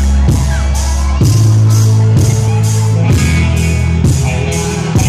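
Live rock band playing amplified and loud: electric guitar and sustained bass notes over a drum kit, with cymbal hits about twice a second. The passage is instrumental, with no singing.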